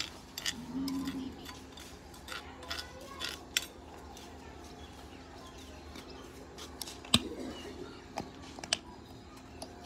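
Scattered light clicks and taps of plastic sauce bottles and the mixing bowl being handled, with the sharpest click about seven seconds in.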